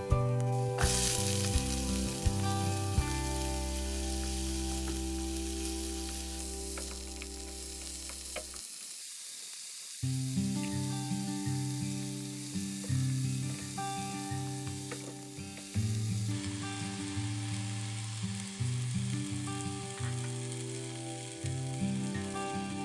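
Broccoli and carrots sizzling as they stir-fry in a hot pan, with background music playing over it.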